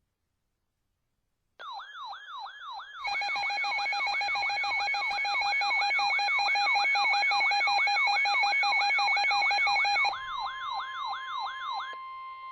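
Emergency alert tones for a severe thunderstorm warning on weather radio. A fast yelping siren, about three rising-and-falling sweeps a second, starts about a second and a half in, and louder steady and pulsing beeping tones join it about three seconds in. About ten seconds in the beeping gives way to a single steady alert tone, and the siren stops near the end.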